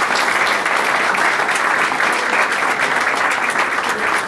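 Audience applauding: dense, steady clapping from a roomful of people, which starts suddenly and keeps going.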